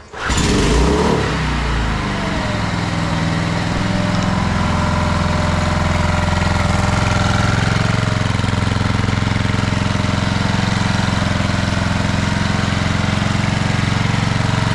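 A small Briggs and Stratton four-stroke outboard motor catches on the pull start with a little choke. It runs loudest for the first second or two, then settles into steady running. It is now running after a new fuel pump and a fresh carburettor clean.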